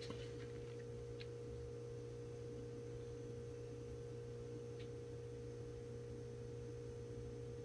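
A faint, steady hum made of a low tone and a higher one, with two faint ticks, one about a second in and one near the middle.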